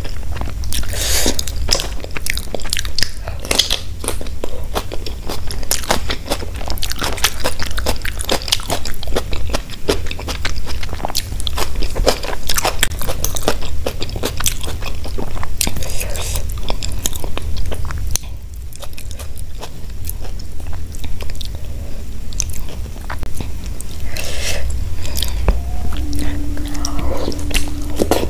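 Close-miked eating: chewing, biting and crunching with many wet mouth clicks and smacks, over a steady low hum.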